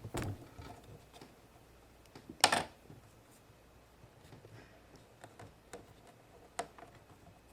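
Scattered light clicks and taps of a plastic Play-Doh mold being handled and pressed, with one louder short knock about two and a half seconds in.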